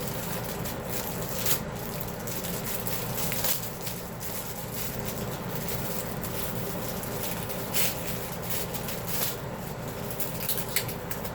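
Packaging being handled: scattered rustles, crinkles and light clicks of plastic wrap and cardboard as a heater's remote is pulled out of its box.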